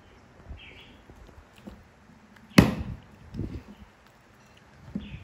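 A plastic sippy cup handled by a baby monkey and knocked against a wooden tabletop: one sharp knock about halfway through, then a few softer bumps.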